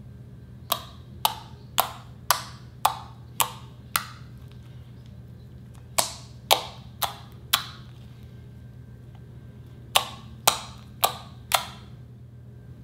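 Fingertips poking into a blob of glossy slime, each poke giving a sharp pop: a run of seven about two a second, then two runs of four after short pauses.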